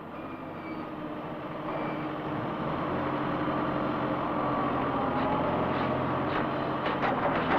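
A heavy engine running steadily, growing louder over the first few seconds and then holding, as from a truck or construction machinery.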